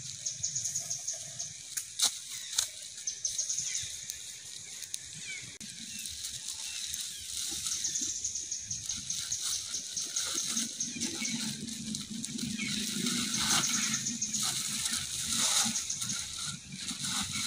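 Outdoor ambience: short bursts of high-pitched chirping that recur every couple of seconds, with a couple of sharp clicks about two seconds in. A low steady hum comes in about ten seconds in.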